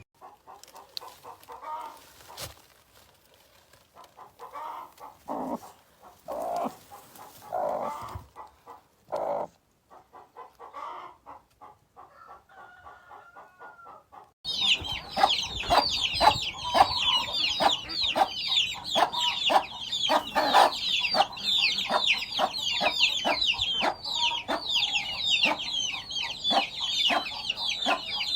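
Hens clucking in short, scattered calls. About halfway through it switches abruptly to a loud, continuous chorus of many chicks peeping rapidly, with hen clucks underneath.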